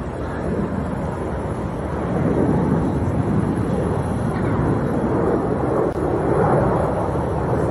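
Snowbirds' CT-114 Tutor jets flying over: a rushing jet-engine noise that swells about two seconds in and stays loud.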